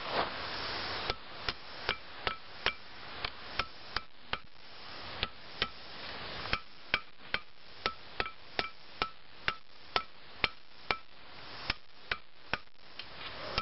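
Hand hammer striking a red-hot steel bar on an anvil in a steady rhythm of about two to three blows a second, each blow followed by a short metallic ring. These are angled blows drawing the hot bar out to a point.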